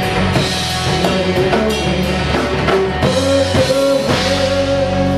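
Live rock trio of drum kit, electric bass and electric guitar playing, with a quick run of drum hits, the opening drum fill. About three seconds in, a guitar note rings on over the bass, with a few more drum hits.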